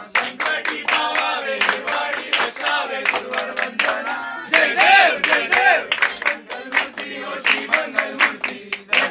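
A group of people singing together, many voices at once, with steady rhythmic hand clapping keeping time.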